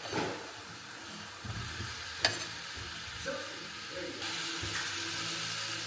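Food sizzling in a frying pan, a steady hiss, with a sharp clink of a utensil about two seconds in.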